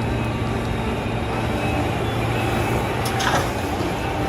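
Toy vehicle running with a steady, engine-like hum, with a short rattle about three seconds in.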